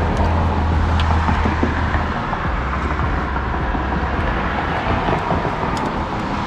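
Steady low hum and rushing noise of a running car; the hum is strongest for about the first two seconds, then eases.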